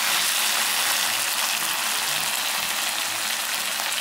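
Thin slices of frozen pork belly sizzling steadily as they grill, a constant hiss of fat frying.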